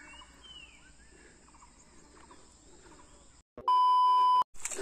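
Faint outdoor ambience with a few faint chirps. About three and a half seconds in, the sound drops out and a loud, steady test-tone beep plays for under a second with the TV colour-bars transition effect, then cuts off suddenly.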